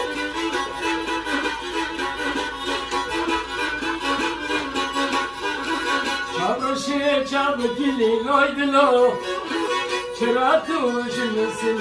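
Kemençe, a bowed spike fiddle with a round skin-covered body, playing a govend dance tune. About halfway through the melody grows louder, with sliding, wavering notes.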